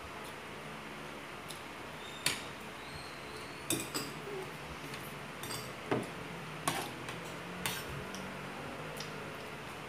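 Metal spoons and forks clinking and scraping against a glass bowl and a ceramic plate while eating: about half a dozen sharp clinks, roughly a second apart.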